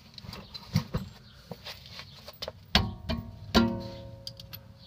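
Metal tools clinking against brake hardware as the rear brake caliper is bolted back on: light clicks, then two sharp metallic clanks that ring on for a moment, about three and three and a half seconds in.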